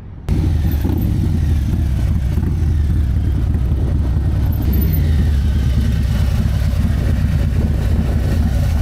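Harley-Davidson Low Rider ST's Milwaukee-Eight 117 V-twin running loud through a Bassani exhaust as the bike rides up at low speed and comes to a stop. The deep, steady engine note starts suddenly a moment in.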